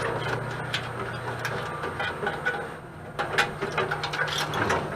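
Irregular clicks and clatter of hand tools and metal parts while wiring is pulled out of a dehumidifier being stripped for scrap, with a louder cluster about three seconds in.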